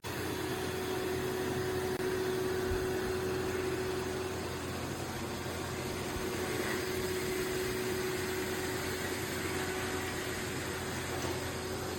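Robot vacuum-mop running: a steady motor and fan whir with a constant hum, unchanging throughout.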